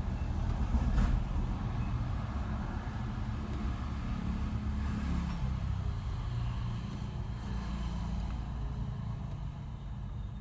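Steady low rumble of a motor vehicle's engine running, with a faint click about a second in.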